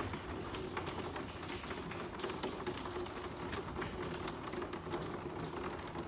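Water trickling and pattering from partly frozen maple tubing into a plastic tote tank, with scattered small ticks and a faint steady hum underneath. The flow is still weak because ice in the line has not yet melted.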